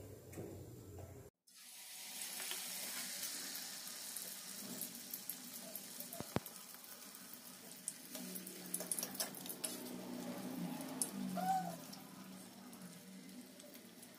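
Rice-and-urad-dal paniyaram batter deep-frying in hot oil in a steel kadai: a steady sizzle with many small crackles, starting about a second in. A single sharp click near the middle.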